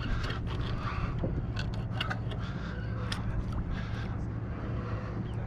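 Spinning reel being wound in during a fish fight: scraping and irregular clicks over a steady low hum.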